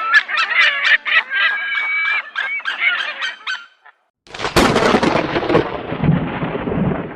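Animal calls: a rapid run of repeated pitched cries for about three and a half seconds, then after a brief break a rough, noisy sound with no clear pitch.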